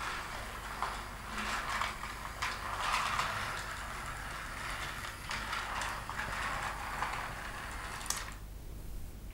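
Hasbro My Little Pony Friendship Express toy locomotive running on its plastic track, its small battery motor and plastic gears whirring and clicking steadily. It stops abruptly near the end, with a click.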